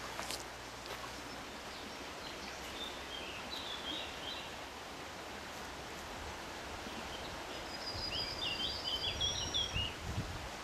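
Outdoor ambience: a steady background hiss with small birds chirping in two short spells, one around 3 s in and a longer one near the end. A low rumble builds up in the last few seconds.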